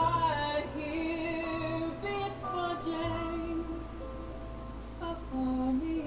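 A woman singing a slow ballad in long, held notes over soft, steady accompaniment.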